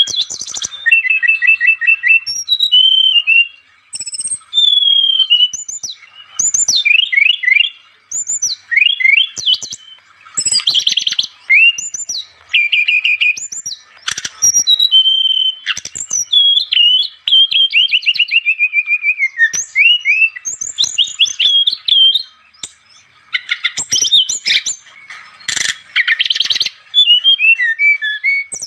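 Brown-chested jungle flycatcher (sikatan rimba dada coklat) singing in a steady run of varied phrases: clear whistled notes, falling slurs and rapid trills, each phrase a second or two long with short pauses between.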